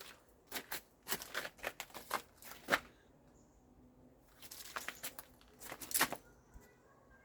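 Handling noises: short bursts of crinkling, tearing and rustling, in two spells about a second and a half to two seconds long, the second starting about four and a half seconds in.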